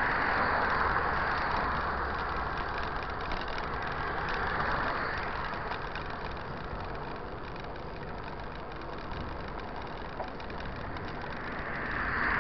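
Steady road and traffic noise from a bicycle riding along a highway shoulder, with cars driving in the next lane. It is louder at the start, eases off through the middle, and swells again near the end.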